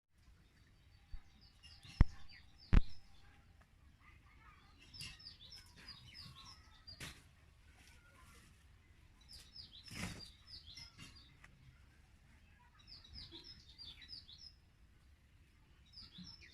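Small birds chirping in repeated bursts of short, high chirps a few seconds apart, with two sharp knocks about two seconds in and a couple of fainter knocks later.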